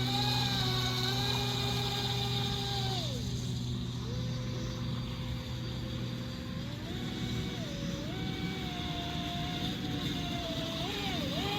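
Small electric motor whining, likely the RC speedboat's brushless motor run by the throttle: its pitch holds steady, drops about three seconds in, then steps back up twice and wavers near the end, over a steady low hum.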